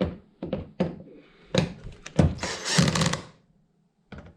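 A series of sharp knocks and thunks, then a longer rattling clatter, from dryer parts, screws and tools being handled during reassembly.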